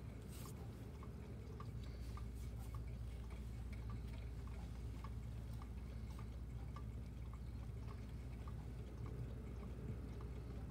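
Steady low hum with a faint regular tick about twice a second.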